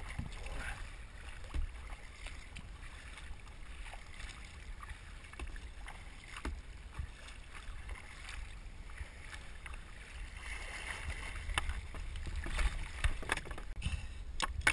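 Kayak paddle dipping and water splashing and dripping against the hull, over a steady low rumble; the splashing grows louder over the last few seconds.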